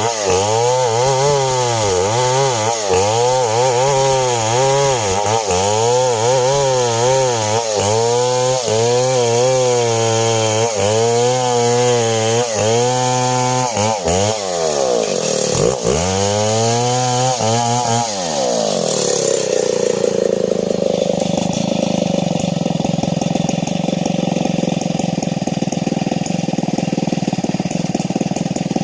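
STIHL 070, a large two-stroke chainsaw, cutting coconut-palm timber, its engine speed rising and falling about once a second under load. About two-thirds of the way through the revs drop away and it settles into a steady idle.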